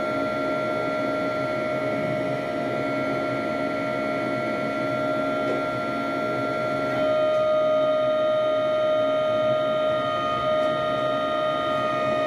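MacGregor ship deck crane's hydraulic drive running with a steady whine, heard from the operator's cab. About seven seconds in the whine drops slightly in pitch and gets louder as the operator works the controls.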